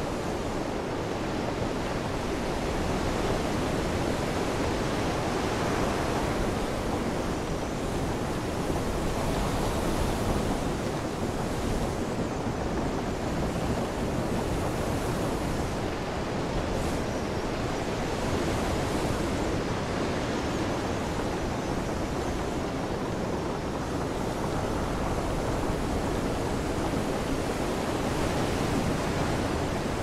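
Ocean waves and wind at sea: a steady rushing noise that slowly swells and eases.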